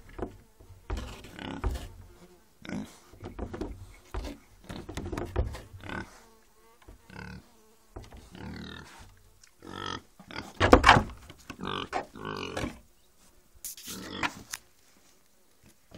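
Domestic pig grunting repeatedly: a run of short, irregular grunts with brief pauses between them. The loudest grunt comes about two-thirds of the way through.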